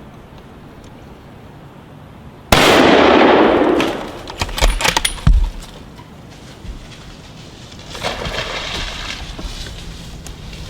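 A single .30-06 rifle shot about two and a half seconds in, loud and ringing out for over a second. A few sharp clicks and knocks follow a couple of seconds later.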